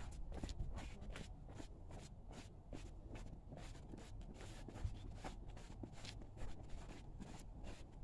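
Faint footsteps of people walking on a paved pavement, light scuffs at roughly two to three a second, over a low rumble.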